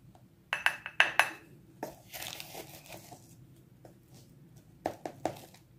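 Plastic measuring spoon knocking against a small white bowl while cocoa powder is measured out: a quick cluster of clicks with a slight ring about a second in, a brief soft scraping of powder, then two more knocks near the end.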